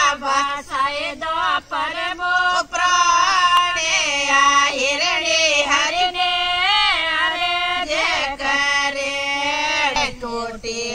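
Women's voices singing a Marwari devotional bhajan unaccompanied, in long held notes that waver and glide in pitch.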